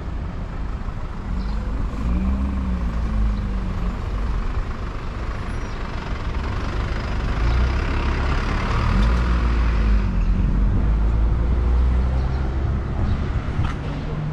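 Road traffic at a city intersection: engines of cars and heavier vehicles running and passing over a steady low rumble. The engine pitch rises and falls as vehicles move off, with the loudest pass swelling about eight to ten seconds in.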